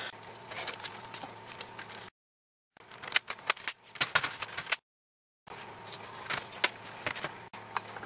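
Plastic laptop case and screen assembly being handled, closed and turned over: scattered clicks, taps and light rattles, broken by two short silences.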